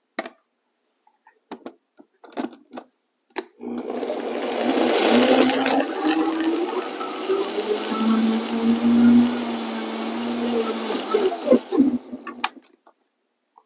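Vitamix blender running for about eight seconds, blending grapes and spinach leaves, with a low wavering hum under the noise of the blades; it stops sharply near the end. A few light knocks from the jar and lid come before it starts, and a click follows the stop.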